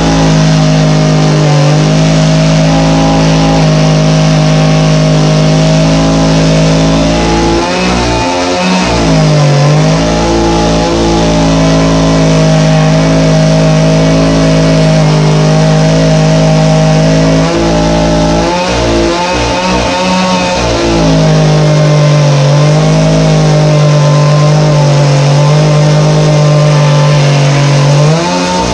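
Stihl two-stroke chainsaw running at high revs while cutting a vertical kerf about 2 inches deep into the ends of the cabin's wall logs. The engine pitch sags and recovers twice, around nine seconds in and around twenty seconds in.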